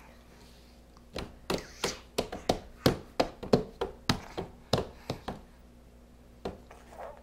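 Small hands slapping a wooden tabletop: a quick, irregular run of about fifteen slaps between one and five seconds in, then a single slap about a second later.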